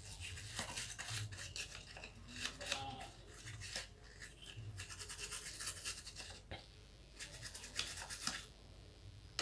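A brush scrubbing an LED lamp's circuit board in a bowl of petrol in rapid scratchy strokes, washing off flux residue. There is a brief pause about two thirds of the way through before the scrubbing resumes.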